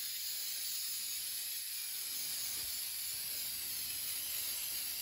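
Aerosol can of upholstery spray adhesive hissing steadily as it is sprayed onto an ATV seat's foam.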